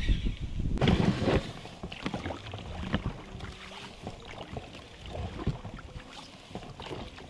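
Oars rowing an inflatable boat: irregular knocks and clicks of the oars working in their oarlocks, with a louder rush of noise about a second in.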